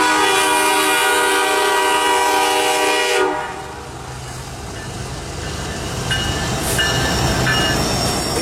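CN freight locomotive's air horn sounding one long, loud blast of about three seconds, then cutting off. After it comes the rumble of the train's cars rolling past, and near the end thin high-pitched wheel squeal sets in.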